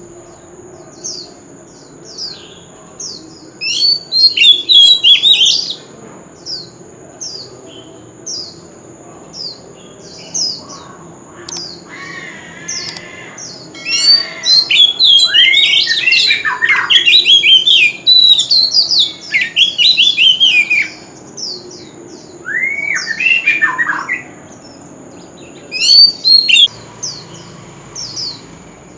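Oriental magpie-robin singing: short down-slurred whistles about once a second, broken by loud bursts of rich, varied song about four seconds in, through the middle stretch, and again near the end.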